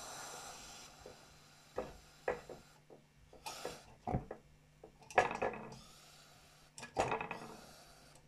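Tilley X-246-B paraffin pressure lantern's burner hissing steadily, then dying away about a second in as the flame goes out. After it, a series of separate clicks, clinks and knocks of the metal lantern being handled, the loudest two near the middle and later on.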